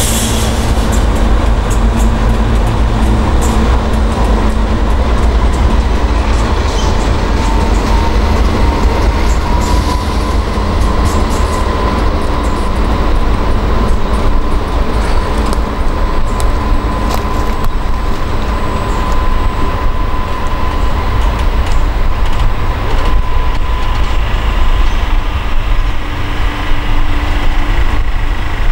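The Ghan passenger train rolling slowly past, its stainless-steel carriages' wheels rumbling over the track with clicks over the rail joints near the start. A thin steady whine sounds through the middle, rising slightly at first.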